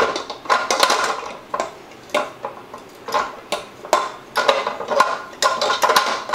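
Stand mixer's stainless steel bowl clanking and scraping as it is handled and fitted back onto the mixer, a string of metal knocks, each ringing briefly.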